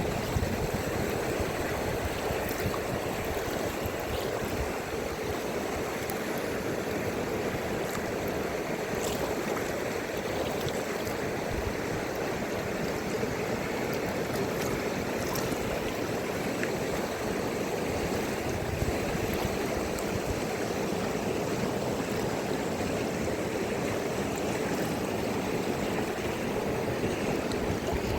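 A river's water rushing steadily, an even, unbroken sound.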